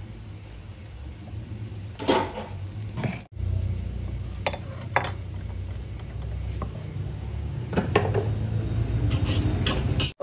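Scattered clinks of spoons and plates over a low steady hum, with a brief dropout about a third of the way in.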